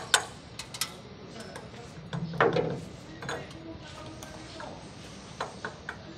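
Irregular sharp metallic clicks and ticks as pliers grip and turn a nut on a steel gate's bolt.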